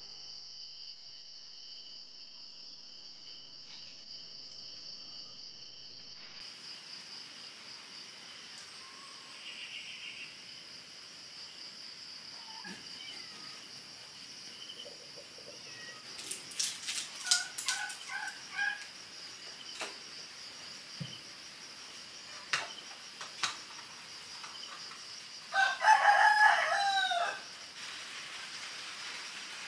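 Rooster crowing once, loudly, near the end, over a steady high-pitched insect drone; a few sharp clicks and short clucking calls come around the middle.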